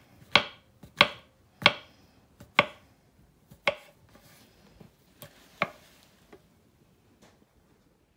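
Kitchen knife slicing through button mushrooms and knocking on a wooden cutting board, a sharp tap every half second to second, getting sparser and fainter in the last few seconds.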